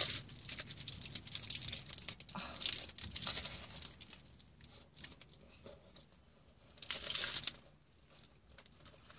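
Aluminium foil wrapping on a footlong sub crinkling in two short bursts as the sandwich is handled, with quieter chewing clicks between them.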